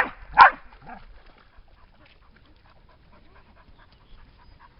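A dog barks twice in quick succession, loudly, then pants quietly with short, evenly spaced breaths.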